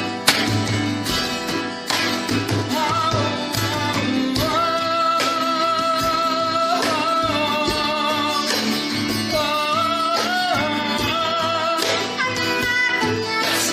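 A song with plucked guitar accompaniment and singing; from about two and a half seconds in, the voice holds long notes.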